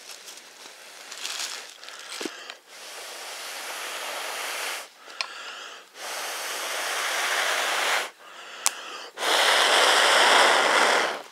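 A man blowing hard into a jute-twine tinder nest to fan a charred-cotton ember into flame: three long, strong breaths, each a little louder, the last the loudest. Before the first breath the dry fibres rustle and crackle in his hands.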